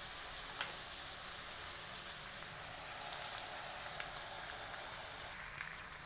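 Pork cubes sizzling steadily in hot oil in a metal wok as they render their fat.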